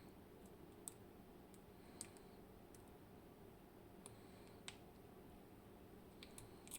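Faint, sparse clicks of small metal lock parts being handled, about half a dozen spread over several seconds, over a low steady hum.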